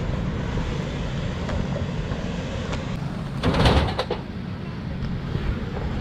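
Mountain-bike jump onto an inflatable airbag landing bag: a steady low rumble, with a louder rushing burst about three and a half seconds in as a rider goes off the ramp and into the bag.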